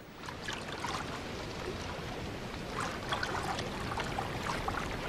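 Seawater lapping and trickling around a floating raft of vegetation: a steady wash of water with small splashes and drips.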